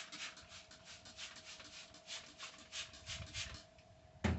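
Wiping the outside of a microwave in quick rubbing strokes, about three to four a second, which stop near the end. Then a single sharp knock.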